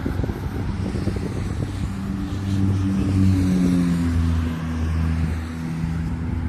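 Wind buffeting the microphone, with an engine's hum passing by: it swells about two seconds in, is loudest near the middle, and sinks slightly in pitch as it fades.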